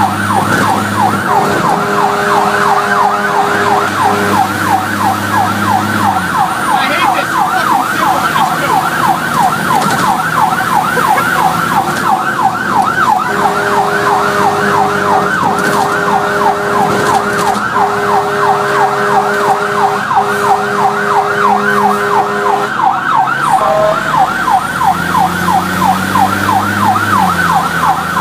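Fire truck siren on a fast yelp, its rising sweeps repeating several times a second, heard from aboard the responding quint. Several long blasts of a lower steady tone sound in the middle.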